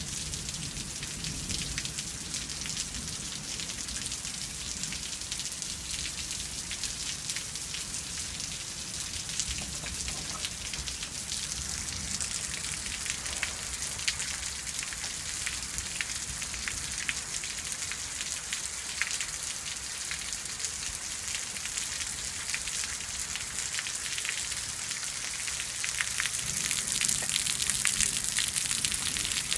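Steady spring rain falling: an even hiss with many separate drops ticking through it, growing louder near the end.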